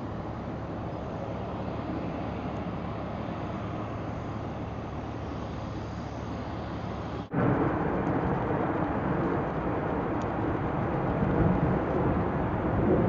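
Distant jet noise from a Boeing 747-8I climbing away, a steady rumble. About seven seconds in it cuts abruptly to louder, closer jet-engine noise from a 747-8I's four GEnx-2B turbofans on the runway.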